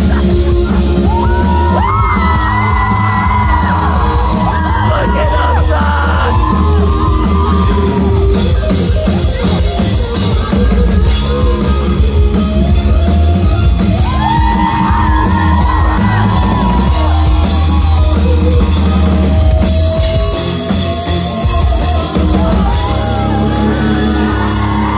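Live rock band playing in a large concert hall: heavy bass and drums under a sung melody that comes and goes through the passage.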